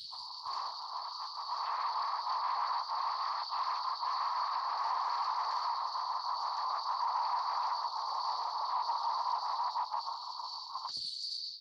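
Sound effect of a rocket coming down to land: a steady rushing hiss that cuts off suddenly near the end.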